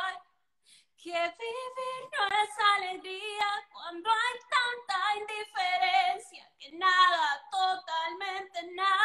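A woman singing a slow Spanish song a cappella, holding notes with vibrato and pausing briefly between phrases.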